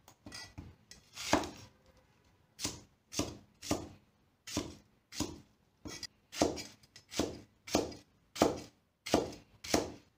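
Kitchen knife chopping a pear into small chunks: a few scattered cuts, then from a couple of seconds in a steady run of cuts about two a second.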